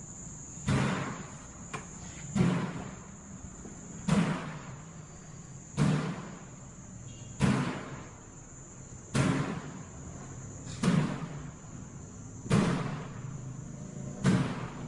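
Slow, evenly spaced heavy thuds, about one every 1.7 seconds and nine in all, each dying away over about half a second, over a steady high-pitched tone.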